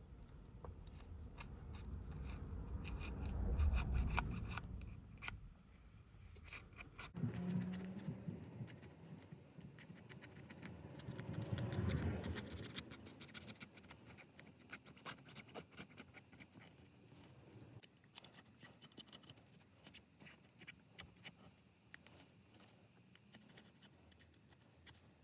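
Small hand tools clicking, snipping and scraping against a phone during a screen replacement, with two louder swells of low rumble along the way.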